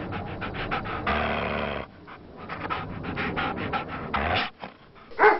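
A dog panting rapidly, in quick short breaths, with one short, loud call near the end.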